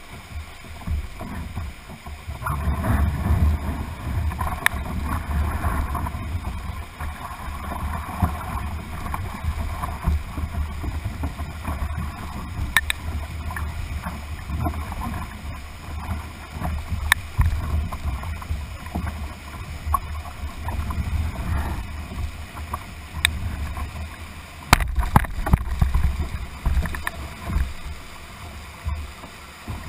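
Whitewater rapids rushing and splashing against a canoe hull, heard from a camera mounted low on the canoe, with a heavy low rumble of water buffeting the microphone. The rush swells a few seconds in and again near the end, and a few sharp knocks come through.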